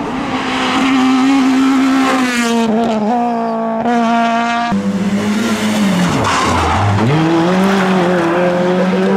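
Rally car engines revving hard at full throttle, the pitch stepping and dipping sharply then climbing again with gear changes and lifts off the throttle.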